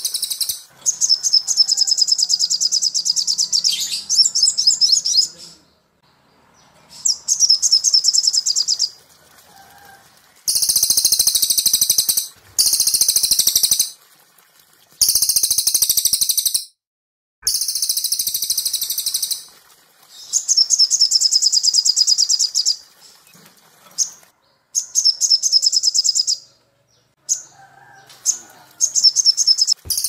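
Cililin and olive-backed sunbird (sogok ontong) song: about ten high, rapid chirping trill phrases, each one to four seconds long, separated by brief pauses.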